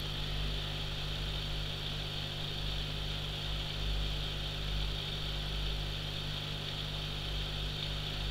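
All Pond Solutions 650 L/H submersible aquarium powerhead running quietly underwater with a steady low hum, its impeller shaft freshly lubricated with silicone oil to stop the impeller noise.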